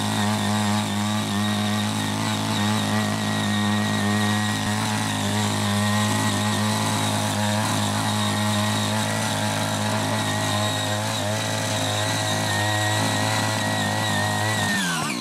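Small single-cylinder engine of a CY80 mini power tiller running at steady high revs while its rotary tines churn through grass and soil. Near the end the engine's pitch drops sharply as the revs fall away.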